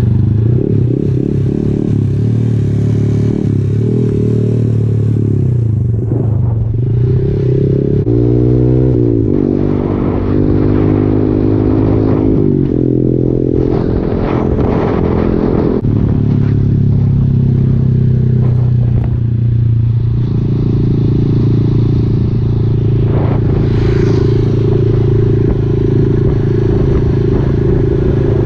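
Honda MSX 125's single-cylinder four-stroke engine running while the bike is ridden along at speed, rising in pitch about eight seconds in and dropping back several times after with changes of throttle.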